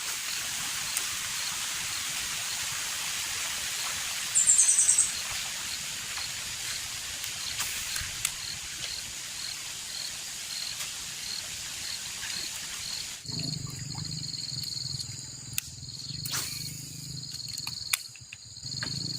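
Outdoor ambience of a steady, high-pitched insect chorus, with a soft chirp repeating about twice a second and one brief, louder chirp about four seconds in. About thirteen seconds in the hiss drops away, leaving a low hum and steady high whine.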